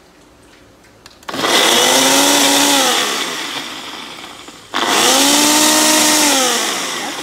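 Nutri Ninja Auto-iQ 1000-watt blender blending chunks of tomato, pepper and onion into a purée. It runs in two long pulses starting about a second in, with a brief break in the middle. Each time the motor rises in pitch as it speeds up, then falls away as it slows.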